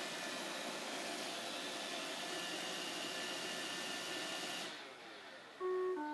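Roomba 535 robot vacuum, its right infrared LED broken, running with a steady motor and brush hum. About three-quarters of the way in its motors wind down, falling in pitch, and two short electronic beeps follow, the second lower than the first.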